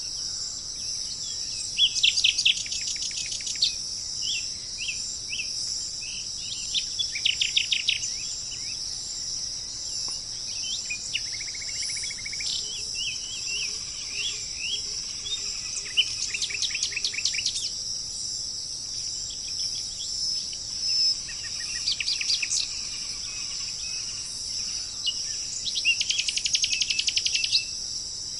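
Tropical birds calling over a steady, high insect drone: fast rattling trills again and again, the loudest about two, seven, sixteen, twenty-two and twenty-six seconds in, with short chirps in between.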